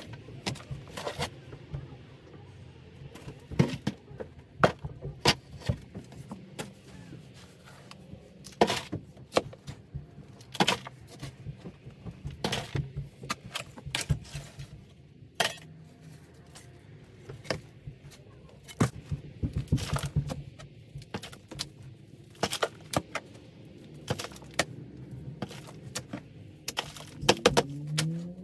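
Metal digging tool chopping and scraping into packed crawl-space dirt by hand, a string of sharp irregular clinks and thuds, over a faint steady low hum.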